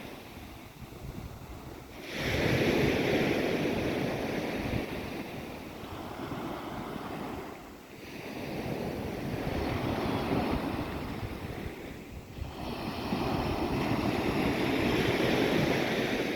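Sea waves breaking and washing in, surging three times, with wind buffeting the microphone.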